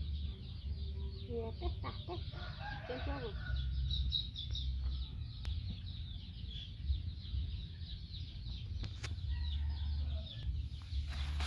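Chickens clucking in short bursts during the first few seconds, over a steady high chirping of small birds.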